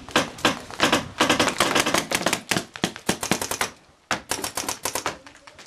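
Paintball markers firing in rapid strings of sharp pops, several shots a second, with a brief pause about four seconds in.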